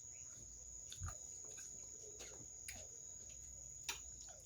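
A quiet room with a steady high-pitched tone and a few faint, soft clicks spread over the few seconds.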